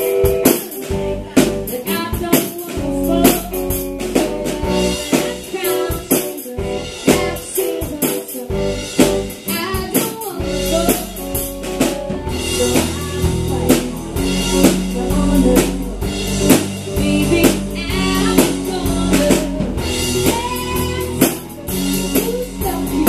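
Live rock band playing: drum kit and electric guitar, with a woman singing lead over them; a heavier low end comes in about ten seconds in.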